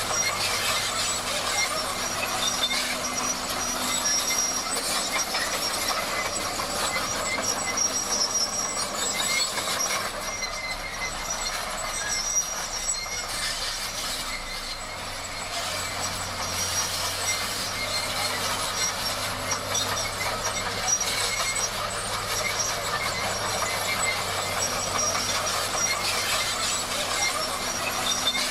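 Crawler bulldozer at work: its diesel engine running steadily under a continuous high-pitched metallic squeal from the steel tracks, easing off slightly about halfway through.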